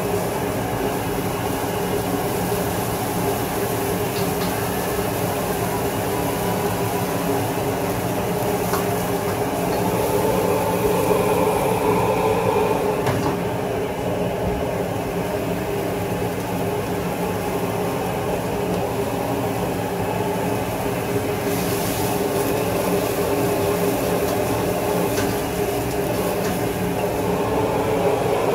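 Wok stir-frying over a high-flame gas burner: the burner and kitchen exhaust run with a steady noise, food sizzles in the wok, and the metal ladle clinks against the wok a few times.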